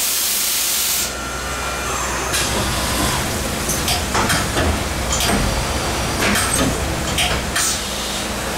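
CNC machining centre at work on a cylinder-head skim pass: a loud spraying hiss with a steady whine for about a second, which then drop away. Running machine noise follows, with a string of short sharp hisses and knocks.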